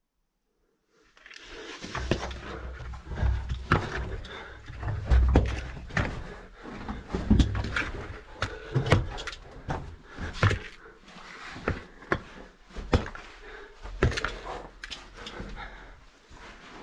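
A caver crawling through a tight rock passage: irregular scraping and knocking of body and gear against rock, with heavy breathing and dull thuds, starting about a second in.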